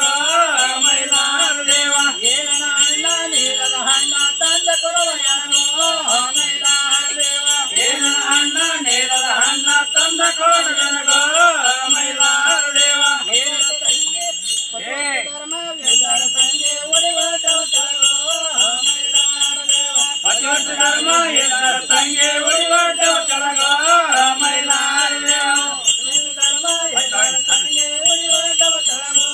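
A group of men singing together in chorus to the steady jingle of small hand cymbals. The cymbals stop briefly about halfway through while the singing carries on.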